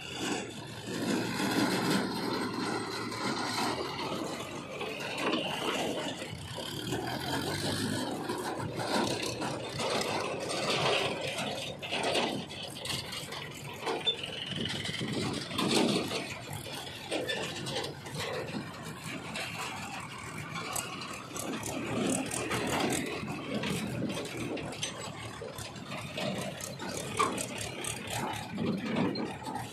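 Diesel engines of a JCB 3DX backhoe loader and farm tractors with trailers running as they move about, with continual rattling of loose metal.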